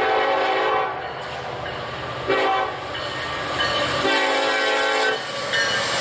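Nathan Airchime K5LLA five-chime locomotive air horn sounding a grade-crossing warning. The end of a long blast is followed by a short blast about two seconds in, then a longer blast from about four seconds in. The freight train's rumble over the rails swells near the end as the locomotive reaches the crossing.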